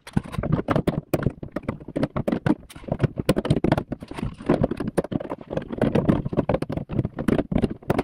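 Rapid, irregular clicking and knocking of plastic and metal parts as the outside door handle of a 2012 Nissan Rogue is worked into its bracket inside the door shell.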